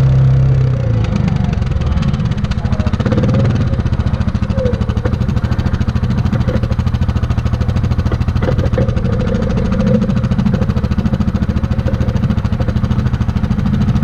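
Yamaha Grizzly 700 ATV's single-cylinder four-stroke engine dropping to idle about a second in, then idling with a rapid, even pulse.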